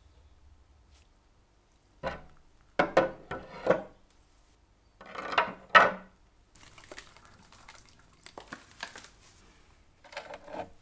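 Rusty steel cheese-grater parts knocking and clinking against a glass tank as they are set into an electrolytic pickling bath, in two clusters of sharp, ringing knocks. Softer rustling of water and handling follows, with another short clatter near the end.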